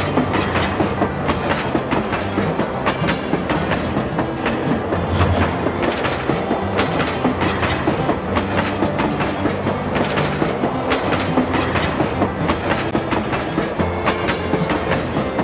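Train running along the track: a steady rumble with rapid clicking of the wheels over the rails.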